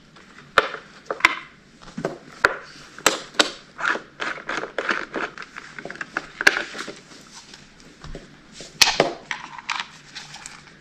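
A screwdriver and a plastic K2 Lil Kat snowboard binding being worked as the binding is unscrewed and lifted off the board: irregular clicks, knocks and scrapes, with a sharper knock about nine seconds in.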